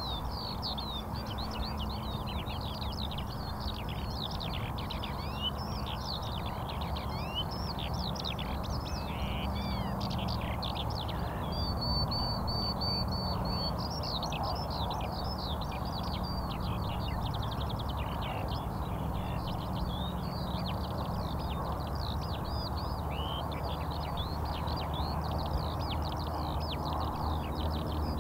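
Many small birds chirping and twittering continuously, with one held high whistle lasting about two seconds near the middle, over a low steady hum.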